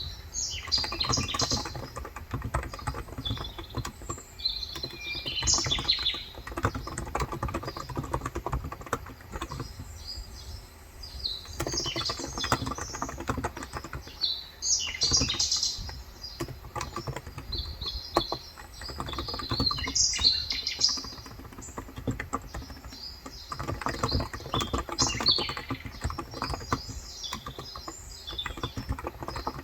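Steady fast typing on a Cox Endeavour tenkeyless electro-capacitive keyboard with light 35 g switches, a dense run of soft key clicks. Birds chirp over it in several separate bursts.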